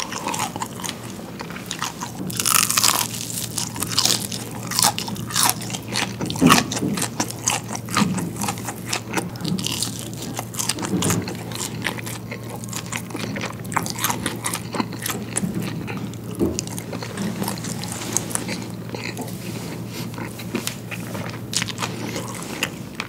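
Close-miked eating of fresh fried chicken and crinkle-cut fries: bites and chewing with many small crisp crunches. A steady low hum runs underneath and cuts off near the end.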